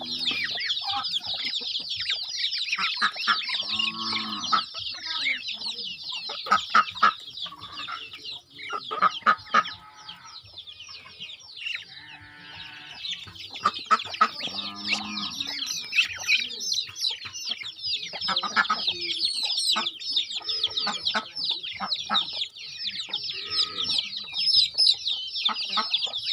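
A mixed flock of chickens, chicks and ducks calling. A constant high-pitched peeping runs throughout, and lower clucks break in every few seconds.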